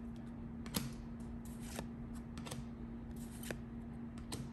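Topps baseball trading cards being flipped through by hand: irregular short slides and snaps of card on card, the sharpest about a second in and near the end.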